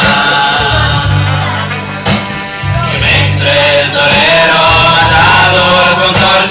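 Music with singing over a heavy, steady bass line; it drops in loudness for a couple of seconds about two seconds in, then comes back up.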